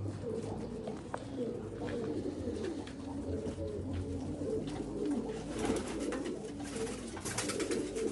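Many domestic pigeons cooing together in an enclosed loft, their low cooing calls overlapping continuously, with bursts of rustling noise a little past halfway and again near the end.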